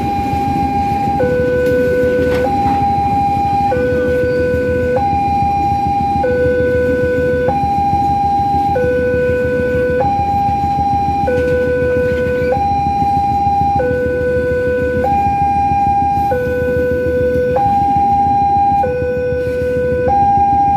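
Level-crossing warning alarm sounding a steady two-tone hi-lo, each tone held about a second and a quarter, over the rumble of a freight train's flat wagons rolling across the crossing.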